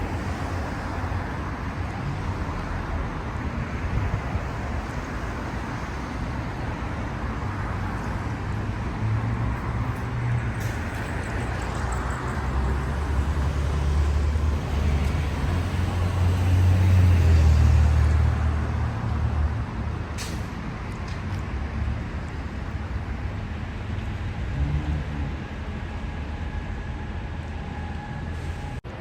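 City street traffic noise, with a heavy vehicle's low engine rumble growing louder about halfway through and fading again.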